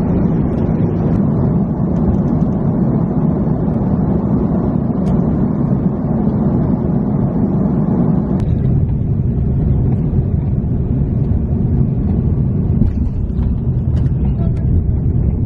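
Jet airliner cabin noise heard from a window seat: a steady, loud low rumble of engines and rushing air. About eight seconds in, the higher hiss drops away suddenly and a lower rumble carries on.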